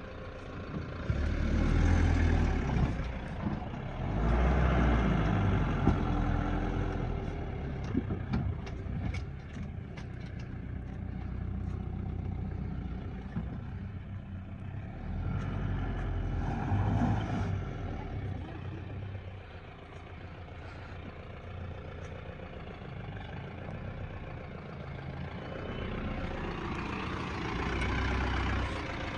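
Mahindra Bolero Camper pickup's diesel engine pulling slowly over a rutted sandy dirt track, its note rising and falling as the throttle is worked, with several swells of revs. A few scattered clicks come through part-way in.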